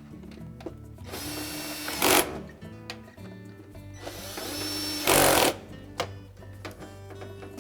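Cordless power driver with a #15 Torx bit driving two screws, one after the other. Each run of the motor lasts about a second and ends in a short, louder burst.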